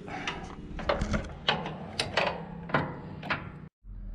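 Irregular metallic clicks, knocks and scrapes of hand tools working the hydraulic pipe fittings on the machine's frame, about one or two a second, breaking off briefly near the end.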